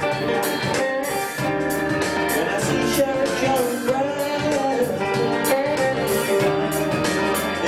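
Live band music: two electric guitars played through amplifiers.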